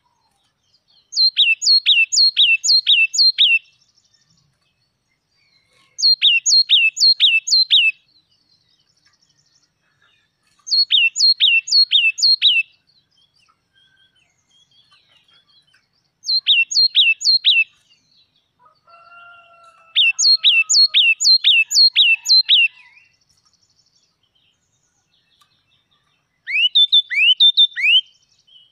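Yellow-cheeked tit singing: phrases of four to six quick, ringing notes, each sliding down in pitch, repeated six times with pauses of a couple of seconds between phrases.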